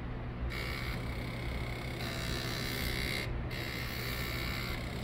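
Floppy disk drive's head stepper motor, stepped by a microcontroller, buzzing at a steady high pitch in runs that change speed every second or two, with a short break about three seconds in.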